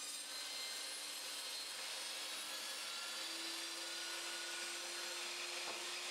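Evolution Evosaw 355 chop saw with its 355 mm blade cutting through a block of wood embedded with nails: a steady, dense hiss of cutting over the saw's hum, which rises slightly in pitch over the last few seconds.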